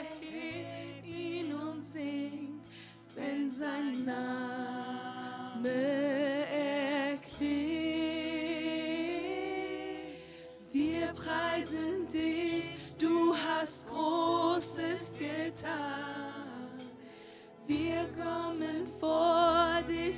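Slow worship song: voices singing a melody with vibrato over sustained low chords that change every few seconds.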